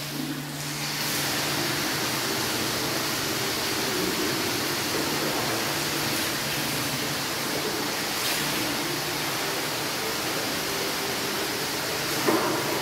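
Tap water running steadily into a marble hammam basin, starting about a second in, with a brief knock near the end.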